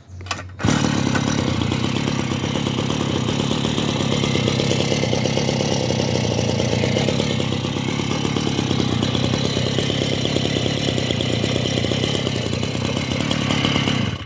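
Small engine of a restored Komatsu D3D lawn mower running steadily at a fast, even speed. It starts suddenly just under a second in and cuts off suddenly near the end.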